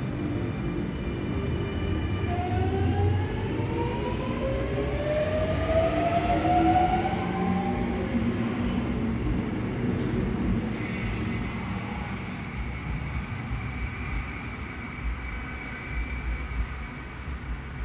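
Sydney Trains double-deck electric train pulling away from the platform over a low rumble. Its traction motors whine in several tones that rise together in pitch as it accelerates, for about six seconds. A fainter steady high whine holds through the second half.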